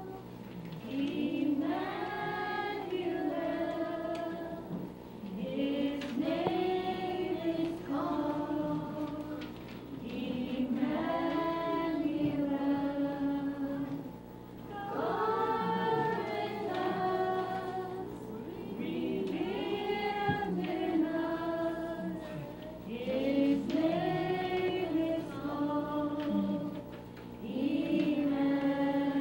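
A group of adults and children singing a Christmas carol together, in phrases of a few seconds each with brief pauses for breath between them.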